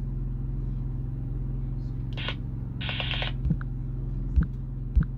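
Steady low electrical hum, with two brief hisses and then a few soft thumps of fingertips tapping the phone's touchscreen in the second half.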